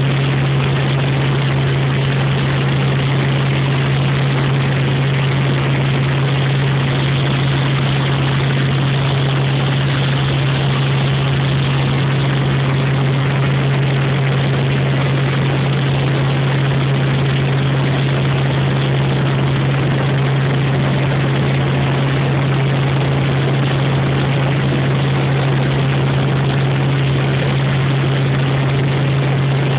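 Helicopter in flight: a steady, loud drone of engine and rotor, with a strong low hum under an even rushing noise and no change in pitch or level.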